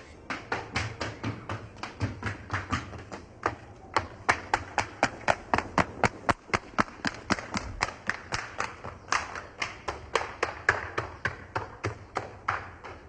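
A rapid, fairly even series of sharp taps, about four to five a second, some louder than others.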